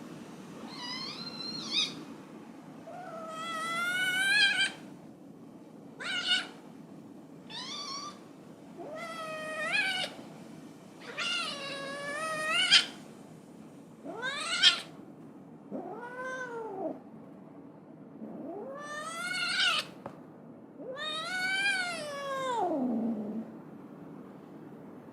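A cat meowing over and over, about ten calls a second or two apart. Several are drawn-out, wavering yowls, and the last one slides down in pitch.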